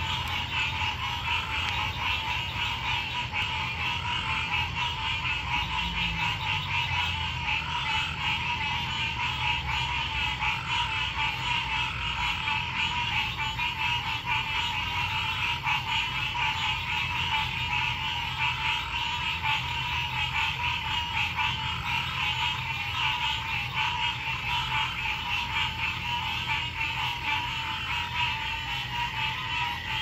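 Chorus of many frogs calling at once: a dense, unbroken pulsing trill, with a lower note repeating about every two seconds.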